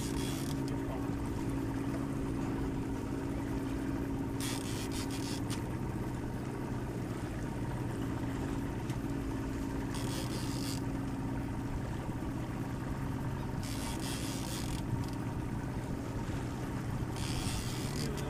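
Boat's outboard motor running steadily at low speed, a constant hum, with short bursts of hiss every few seconds.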